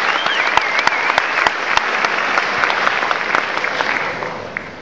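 Large audience applauding, with one person whistling a high, wavering note during the first second; the applause dies away near the end.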